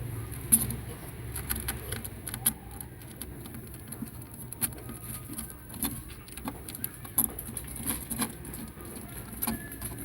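Young kittens' paws and claws pattering and scratching on a hard surface: irregular light taps and clicks, the loudest about half a second in.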